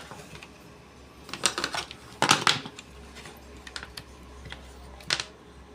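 Small clicks and knocks of hair-trimmer parts being handled and pressed into place by hand: a cluster of clicks about a second and a half in, the loudest just after two seconds, then a few single clicks.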